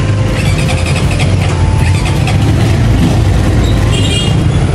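Dirt bike engine running with a steady low rumble.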